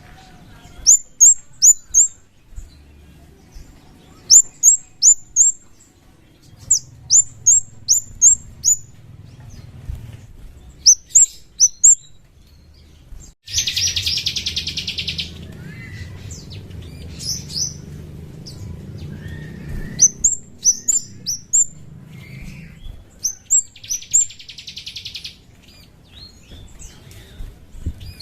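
Kemade bird singing: groups of three to five sharp, high chirps that slide downward, with a long buzzy trill about 14 s in and another about 24 s in.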